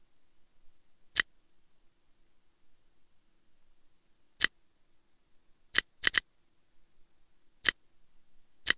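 Seven short, sharp computer input clicks at irregular spacing: one about a second in, then single clicks and a quick cluster of three a little past the middle, as an answer is typed and entered in a math program.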